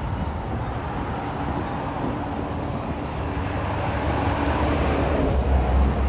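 Road traffic on the causeway: vehicles going by, their tyre and engine noise growing louder toward the end, with wind rumbling on the microphone.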